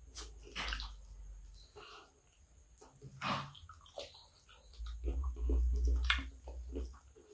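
Wet, squelchy sounds of fingers digging into and scooping up a heap of kottu (chopped roti stir-fried with vegetables), with a few sharp crackles from the plastic wrapping under the food. Dull handling bumps come in about a second in and again around five to seven seconds in.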